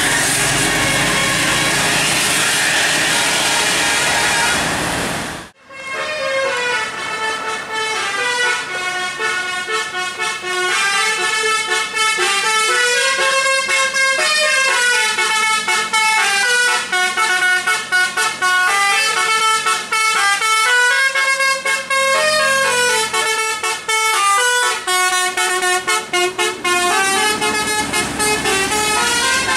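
A loud, even rushing noise for the first five seconds or so. Then, after an abrupt break, a bus telolet horn (a set of electric air-horn trumpets) plays long runs of several tones at once, stepping up and down in pitch like a tune.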